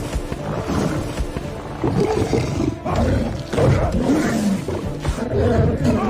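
Lion roaring and snarling in a movie attack scene's sound mix, in repeated loud surges, over dramatic film score music.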